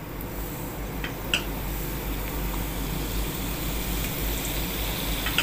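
Wheat-flour samosa deep-frying in hot oil in a kadai: a steady sizzle and bubbling, with a few small clicks about a second in.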